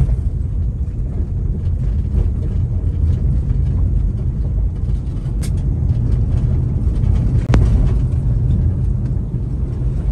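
Steady low rumble of a car driving over a rough, unsealed construction road, heard from inside the cabin, with two short sharp clicks a couple of seconds apart near the middle.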